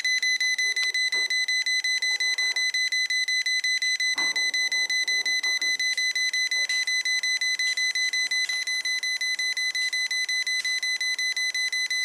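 Non-contact voltage tester beeping rapidly and steadily with a high-pitched beep, several beeps a second, as it senses live voltage at the timer switch: the circuit's breaker is still on.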